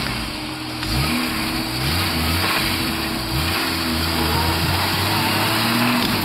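Lifted Jeep Wrangler YJ's engine revving as it drives over a fallen log in muddy water. The engine climbs in revs about a second in and holds higher revs through the second half, while the mud tires churn the water.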